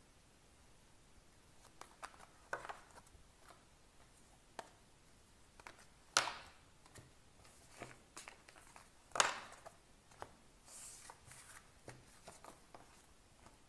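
Tarot and oracle cards being gathered up off a table and stacked by hand: faint scattered clicks, taps and slides, with two louder sharp strokes about six and nine seconds in.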